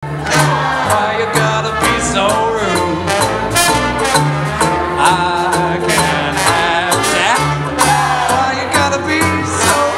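Small live swing band playing: trumpet and trombone lines over double bass, snare drum and strummed ukulele, with regular snare strokes keeping the beat.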